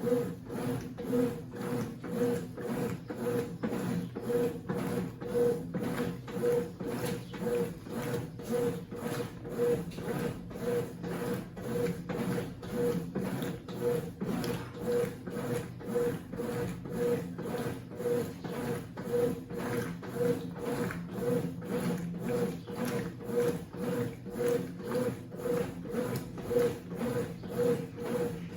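Consul CWC08 top-loading washing machine agitating a load, its motor humming and pulsing with each back-and-forth stroke of the wash plate in a quick, even rhythm, with the wet comforter churning.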